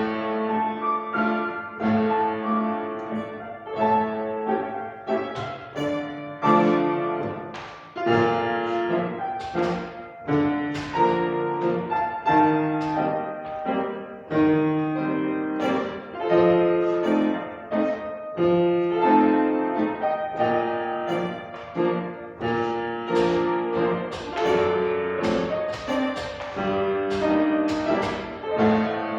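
Solo piano playing ballet class accompaniment for grand battement at the barre: classical-style music with strong, regularly accented chords.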